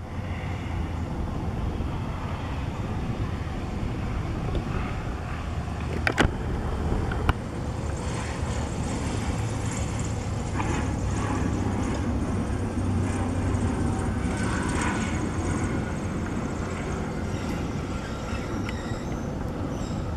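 Light single-engine propeller plane's engine running at low power as it lands and rolls past along the runway, over a steady low rumble. There are two sharp clicks about six and seven seconds in.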